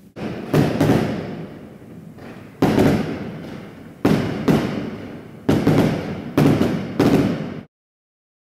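Fireworks exploding in a street: about ten sharp bangs, mostly in pairs a second or so apart, each trailing off. The sound cuts off suddenly near the end.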